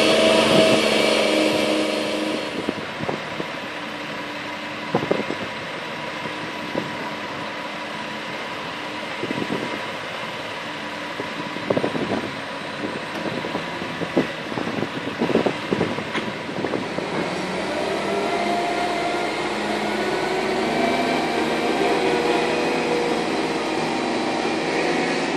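Steel-frame construction work: a mobile crane's engine running, with a quieter steady engine hum and sharp metal knocks and clanks, a second or more apart, as steel beams are fitted in the middle. The engine hum rises again near the end as the crane lifts a roof truss.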